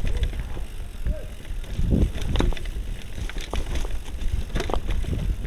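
Mountain bike riding over a rough trail: scattered rattles and knocks from the bike over a steady low rumble of wind on the microphone.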